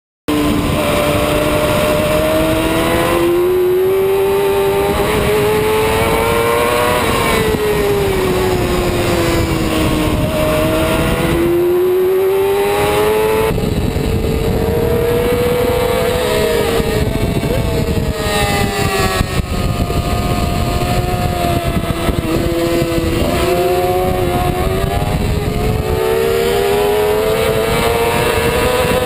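Sport motorcycle engine running hard on a racetrack, heard from a camera mounted on the bike. Its note swells and sags repeatedly as the throttle is rolled on and off through the corners.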